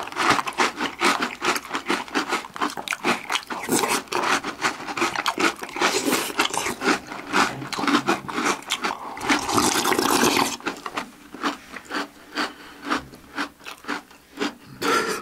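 Close-up crunching of Oreo O's chocolate cereal being chewed in milk, the pieces still crisp after soaking, with wooden spoons scraping the glass bowls. The crunching is dense for most of the time, then thins to a few scattered clicks about two-thirds through.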